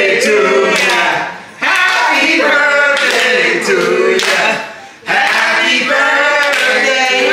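A small group of men and women singing a birthday song together, in phrases with short breaks about one and a half and five seconds in, with some hand clapping.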